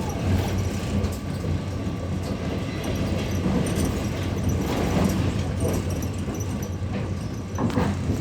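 Passenger train running, a steady rumble of the wheels on the rails heard from inside the carriage.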